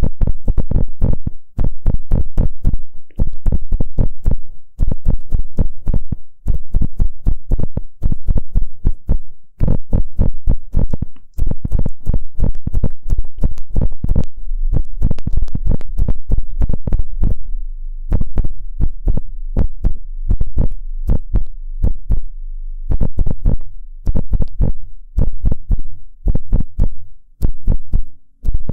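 Ear-pick tip scraping and rubbing close against a microphone in rapid, scratchy strokes, coming in runs of a second or two with short breaks.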